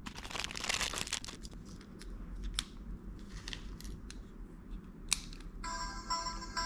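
Plastic packaging rustling and tearing, with sharp clicks, as a capsule toy is opened. About five and a half seconds in, a small toy speaker starts playing a Japanese train departure bell: an electronic ringing made of several steady tones at once.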